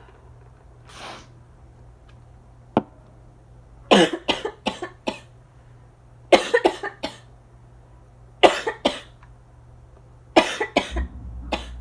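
Asthma coughing in four fits of two to four quick, harsh coughs each, a couple of seconds apart; the cougher thinks the cough is a little dry. A steady low air-conditioner hum runs underneath and grows louder near the end.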